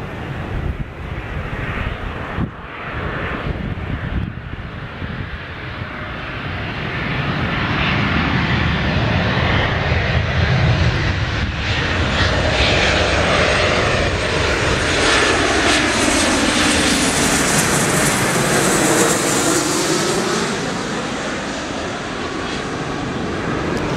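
Embraer 195 twin-turbofan airliner on landing approach flying low overhead: jet engine noise grows louder about a third of the way in, and a high engine whine sweeps down in pitch as it passes, then eases off slightly.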